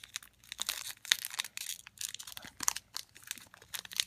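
Plastic wrapper of a football trading card pack being torn open by hand, crinkling and crackling in quick, irregular snaps; the wrapper is tough to tear.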